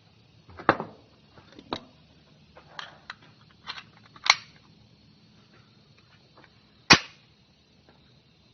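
.45 caliber 1911 pistol shots at point-blank range, an irregular string of about seven reports, three of them much louder than the rest: one about a second in, one near the middle and one about seven seconds in.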